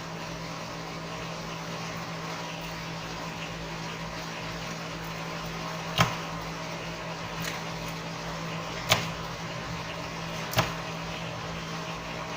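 A steady low hum with three short, sharp clicks in the second half, the last two about a second and a half apart: small tools tapping and clicking against a smartphone's internals during disassembly.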